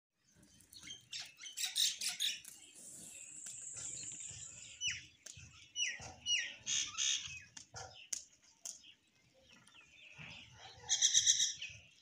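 A feeding flock of common mynas and house sparrows calling: a busy jumble of sparrow chirps and myna whistles. There are a few short falling whistles about halfway, and a loud harsh chattering call near the end.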